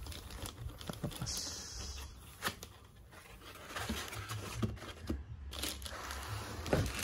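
Plastic wrapping crinkling and rustling as a boxed unit is handled, with cardboard and foam packing shifting and a few light knocks.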